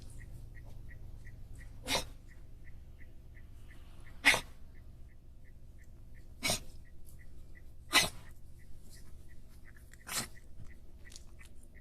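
Toy poodle in a reverse-sneeze fit: five short, sharp sneeze-like bursts about two seconds apart.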